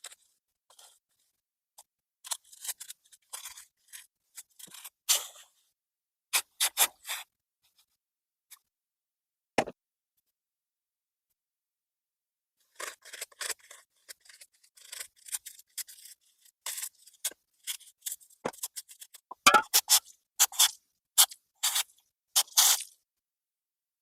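Intermittent scraping and clicking from hand work on small metal mower parts: quick rasping strokes in clusters, with pauses of silence between them and a single knock near the middle.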